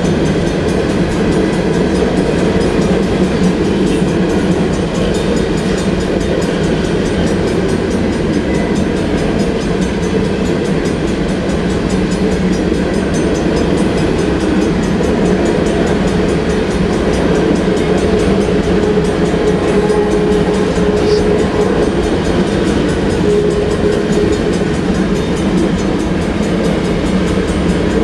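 Empty covered hopper cars of a long freight train rolling past: a steady, loud rumble of steel wheels on the rails, with a faint thin tone coming in partway through.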